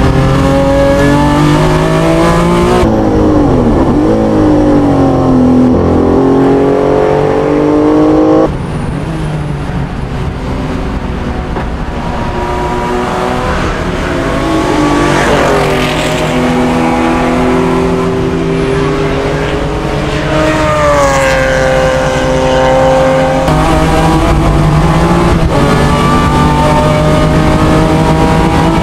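Race car engines at high revs: from the cockpit the engine climbs and drops through gear changes, then from trackside a BMW M3 GTR and a Porsche 911 race past.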